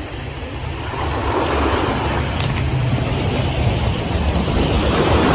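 Sea waves washing against a rocky shore, a steady rushing that swells slightly, with wind rumbling on the microphone.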